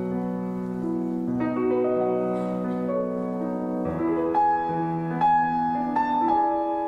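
Background piano music: slow, sustained chords and notes.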